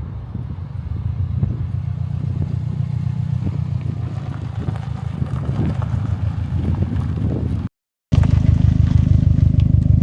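2014 Subaru WRX STI's turbocharged 2.5-litre flat-four engine running at a steady low note, its normal sound. The sound drops out briefly just under eight seconds in and comes back louder.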